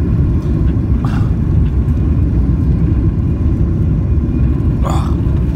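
Airliner cabin noise on short final, heard at a window seat over the wing: a steady low rumble of the jet engines and air rushing past the extended flaps. Two brief higher sounds cut in, about a second in and near the end.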